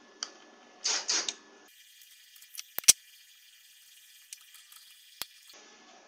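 Small metal parts and tools handled at a MIG welding torch while its contact tip, welded to the wire, is swapped for a new one. A brief scraping rattle comes about a second in, two sharp metallic clicks just before the middle, and a lighter click later on.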